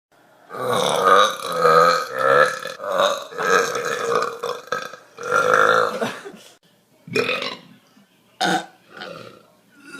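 A person burping on command: about seven long, loud belches in quick succession, then three shorter ones.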